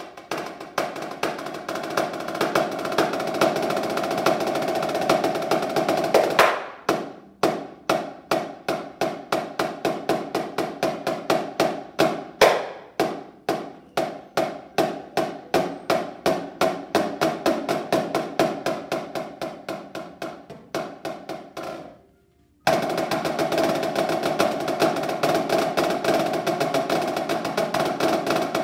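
Rudimental snare drum solo played with sticks: a fast, dense roll passage, then a long stretch of separate sharp strokes several a second with occasional louder accents, a short stop, and fast rolls again near the end.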